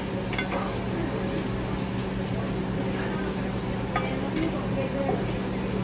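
Tortilla chips in red salsa sizzling in a frying pan as a metal spoon stirs and scoops them, with a few light clicks of the spoon against the pan, over a steady low hum.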